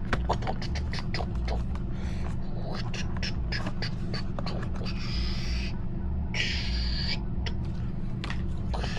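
Phone box and packaging being handled: a run of light clicks and taps, with two short rustling scrapes about five and six and a half seconds in, over a steady low hum.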